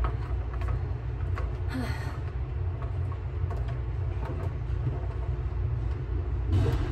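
Steady low rumble of room noise, likely the gym's ventilation, with faint footsteps and small knocks on a wooden floor and a brief louder noise near the end.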